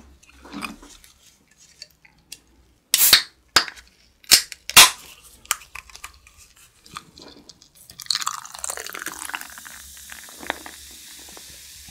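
A can of beer being handled and opened, with a few loud sharp clicks about three to five seconds in. From about eight seconds in, beer is poured from the can into a glass, with a steady fizzing hiss and crackle of foam.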